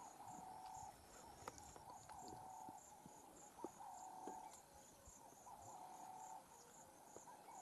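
Faint insects calling: a rapid, high chirping and a lower, flat buzzing note of about half a second that repeats every second and a half to two, with a few scattered light ticks.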